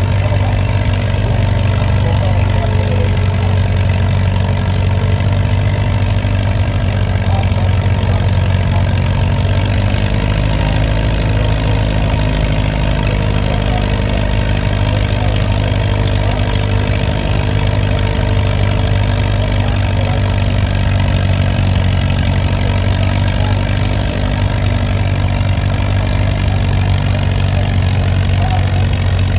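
Vintage tractor engine running steadily at a constant speed, a low even note with a slight shift in pitch about ten seconds in.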